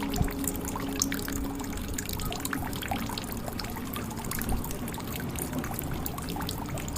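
Water trickling and dripping into a jug: a steady run of many small drops and splashes with no rhythm.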